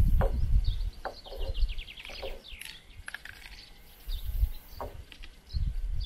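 Small birds chirping, with one quick trill of about ten notes a couple of seconds in. Bursts of low wind rumble on the microphone are the loudest sound, at the start, around four seconds in and near the end.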